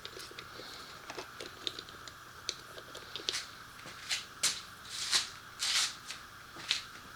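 Irregular small clicks, taps and short scrapes of hands working with tools, clips and small parts on a motorcycle, a few louder scrapes near the middle.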